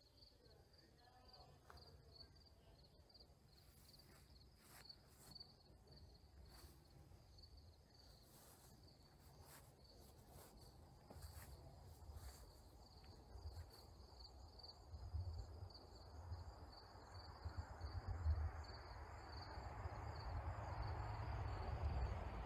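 Crickets chirping steadily, a faint high pulsing trill. A low rumble and a rushing noise swell up over the second half.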